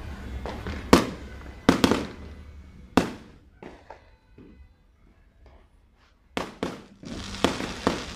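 Fireworks bursting overhead. There are several sharp bangs in the first three seconds and scattered smaller pops in the middle. Two more bangs and a dense crackling come near the end.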